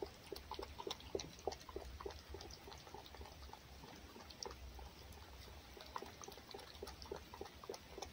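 Fox lapping and licking food from a bowl: faint, quick, irregular wet clicks of its tongue, a few a second.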